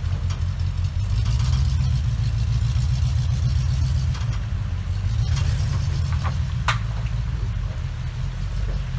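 Rock-crawling Jeep's engine pulling at low revs under load as it climbs over a rock ledge: a deep, steady rumble that grows a little louder about a second in. A brief sharp click sounds about two-thirds of the way through.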